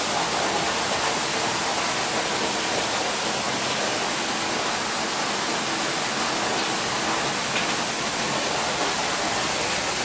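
Man-made waterfall cascading down a rock wall: a steady splashing rush of falling water.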